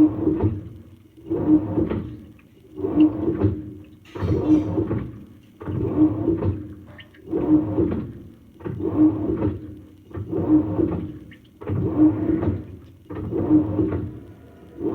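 Samsung washing machine in its wash cycle with deep-fill water: the drum turns in strokes about every one and a half seconds, each stroke sloshing the water and laundry with a hum from the motor.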